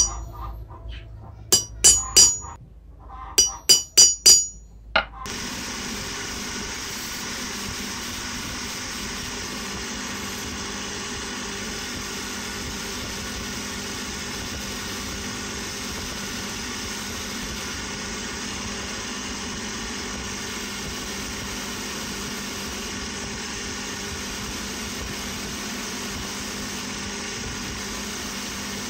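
Hammer blows on a steel punch resting on a steel rail, about eight sharp ringing strikes in small groups over the first five seconds. Then a bench grinder runs with a steady, even hum while small metal parts are held to its spinning wheel.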